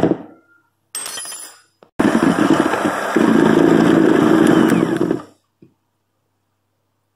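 Electric hand mixer whisking egg whites with cream of tartar toward soft peaks: a steady motor whir with the beaters churning. It starts about two seconds in, gets louder partway through, and stops about three seconds later.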